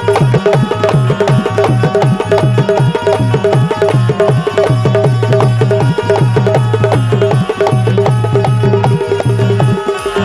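Instrumental Bundeli Rai folk music: fast, dense hand-drum strokes over steady held melodic tones, with no singing.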